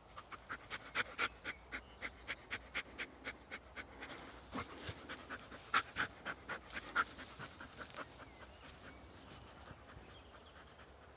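Black hound puppy breathing rapidly and rhythmically through nose and mouth, about four quick breaths a second, panting or snuffling close to the ground. The breaths die away after about eight seconds.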